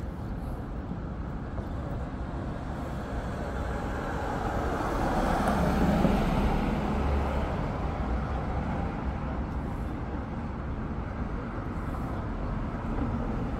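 Street traffic at a town intersection: a steady rumble of passing cars, with one vehicle passing close and loudest about six seconds in before fading away.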